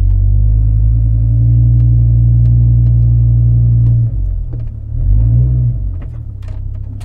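Pickup truck's engine and drivetrain rumbling low and steady, heard from inside the cab as the truck crawls forward. About five seconds in the engine note briefly rises and falls, then it settles quieter near the end.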